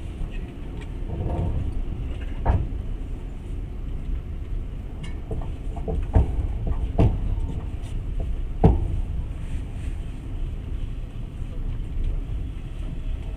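Passenger train running at speed, heard from inside the carriage: a steady low rumble of wheels on rails, broken by a few sharp knocks, the loudest near the middle.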